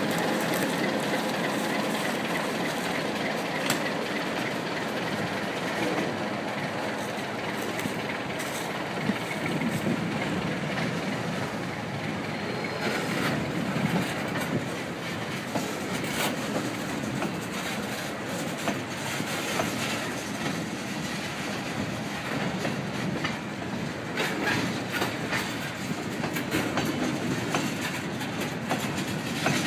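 Freight train pulled by an ALCO RS-11 diesel locomotive going past: the locomotive's V12 diesel engine runs as it moves away, then empty open-top freight cars roll by with their wheels clicking over the rail joints. Wheel squeal is faint at most.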